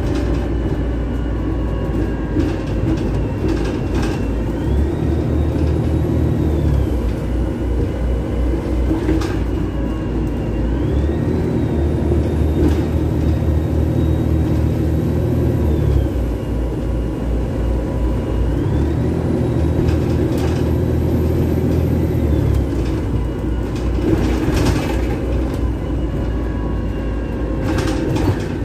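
Double-decker bus heard from inside, its engine running steadily, with three spells where the engine works harder and a high whine rises, holds and falls away, as the bus pulls away and eases off in stop-start running. A few sharp rattles and knocks from the bodywork.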